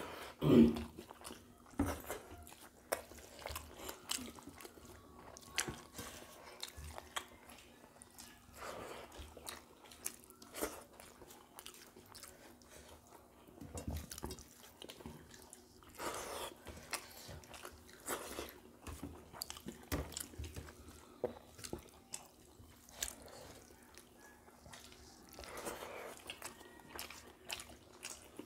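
Close chewing and mouth smacking of two people eating rice and fish pakoda curry by hand, with fingers working the rice on steel plates: irregular short clicks and smacks, one louder bump about half a second in.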